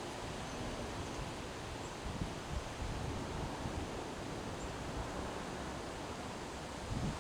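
Strong autumn wind rushing through trees, leaves rustling steadily, with irregular gusts buffeting the microphone as low rumbles.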